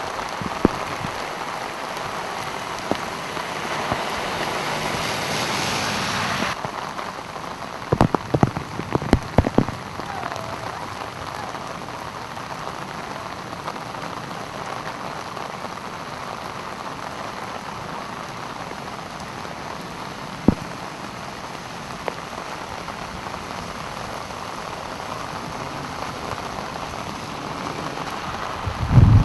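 Heavy rain and water spray hissing as a pickup truck drives through a flooded street, the brighter hiss cutting off abruptly about six seconds in. Then a steady rush of rain and floodwater runoff, with a few sharp taps and a thump at the very end.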